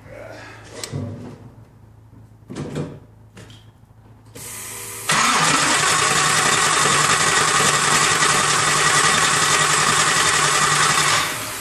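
Starter cranking a 1988 Lamborghini Countach replica's engine steadily for about six seconds, starting about five seconds in, without the engine catching, on a car that won't start; the owner suspects a faulty fuel pressure regulator dumping the fuel pressure back into the tank. A few short knocks come before the cranking.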